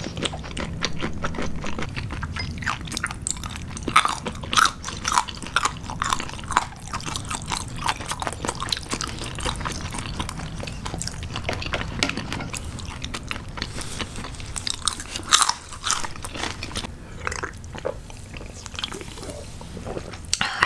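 Chewing and biting of crunchy raw seafood, with many short crisp crunches close to the microphone.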